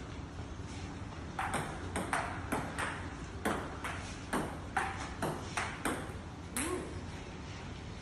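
Table tennis ball clicking back and forth off paddles and table in a rally, a quick, fairly even run of sharp clicks, two or three a second, starting about a second and a half in and stopping near the end.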